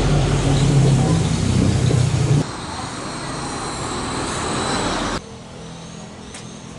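Steady rumbling background noise with a wavering low hum. It drops to a quieter hiss about two and a half seconds in and falls again about five seconds in.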